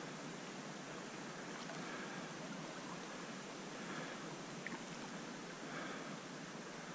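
Faint, steady rush of flowing stream water.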